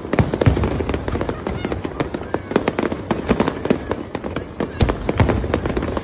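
Aerial fireworks display: a dense run of sharp bangs and crackling as shells burst, several a second, with a few heavier booms about half a second in and again near the end.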